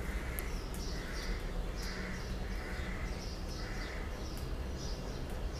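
Onions and spiced chicken-marinade paste sizzling in oil and butter in a frying pan, with a wooden spatula stirring and clicking against the pan toward the end. Repeated calls sound in the background.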